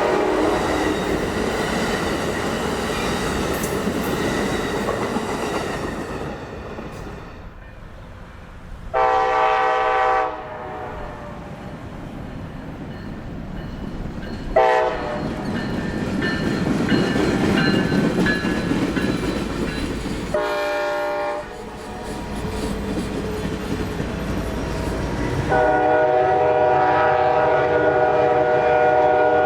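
Nathan K5LA five-chime train horn sounding in several separate blasts: one fading at the start, a short one about 9 seconds in, brief ones near the middle, and a long held chord from about 26 seconds on. Between the blasts, passing trains rumble, with wheels clacking over the rail joints.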